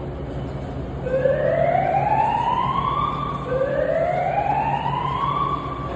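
Emergency evacuation alarm siren sounding a rising whoop twice. Each sweep climbs in pitch for about two seconds, then cuts off and starts again.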